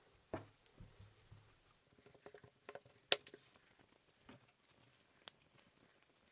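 Microfibre cloth rubbing over a Siemens A40's plastic back housing, faint scratchy rustling with several small clicks and taps as the plastic is handled; the sharpest click comes about three seconds in.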